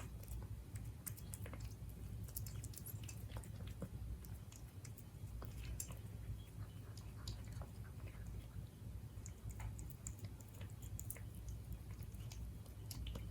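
A cat chewing and eating its food: many small, irregular clicks and crunches over a low, steady hum.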